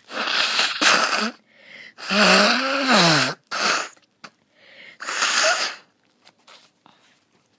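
A person sneezing in a run of hard, noisy bursts; the longest carries a wavering, falling voice, then a few faint sniffs near the end.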